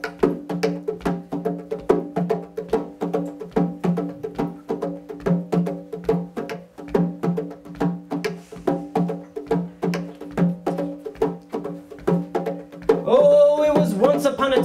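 Hand drum played with bare hands in a quick, steady rhythm, each stroke leaving a short ringing note. Near the end a man's voice begins singing over the drumming.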